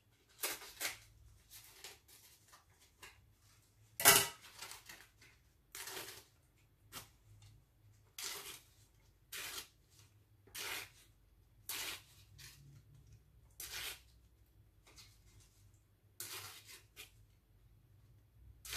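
Dry corn husk crackling and tearing in the hands as it is split and worked into strips, in short rustling bursts every second or two. One sharper, louder snap comes about four seconds in.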